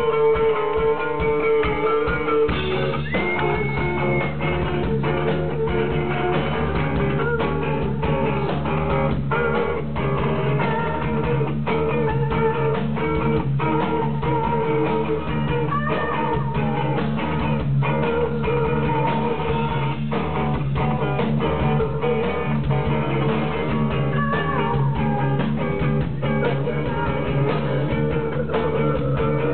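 A live heavy noise rock band playing loud, with electric guitars and bass held in a dense, sustained wall of sound over steady drum beats.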